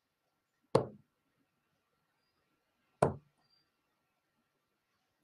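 Steel-tip darts thudding into a Target Pro Tour bristle dartboard. There are two sharp strikes about two seconds apart, and a third at the very end.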